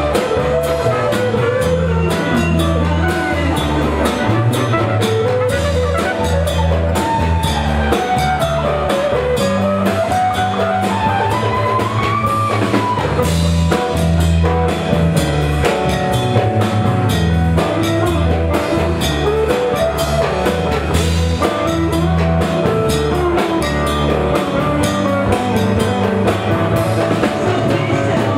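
Live dance band with a horn section playing an instrumental passage: drum kit and a repeating bass line under a winding lead melody, with trumpets in the lineup.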